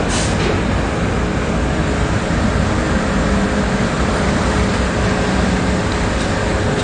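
Steady, loud drone of city street traffic and a heavy truck's engine running close by. A short hiss comes right at the start.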